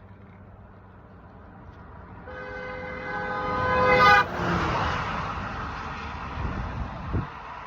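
A passing vehicle's horn sounds for about two seconds, growing louder, then cuts off, followed by the rush of the vehicle going by, fading away.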